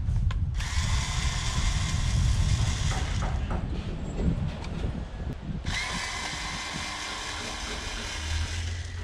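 A small handheld power tool motor running in two spells, starting about half a second in and again just after the middle, with a short lull and a few clicks between; a steady low hum sits under it.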